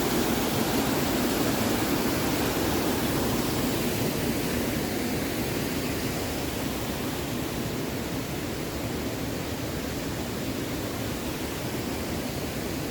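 Steady rush of a mountain creek's water tumbling over rocks in small cascades, growing slightly fainter from about four seconds in.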